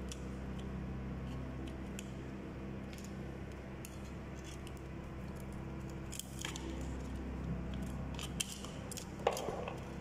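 Light scattered clicks and scrapes of hand work in a plastic electrical back box, with a few sharper clicks and a short scrape near the end, over a steady low hum.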